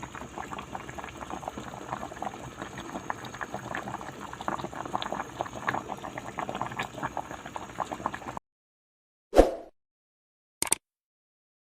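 Pot of laoy, a fish and vegetable soup, boiling with a dense crackle of small bubbling pops; it cuts off suddenly about eight seconds in, followed by two brief sharp sounds.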